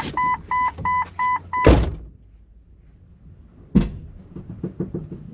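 A vehicle's door-open warning chime beeping about four times a second, cut off about two seconds in by a car door shutting with a loud thud. A second door thud comes near four seconds in.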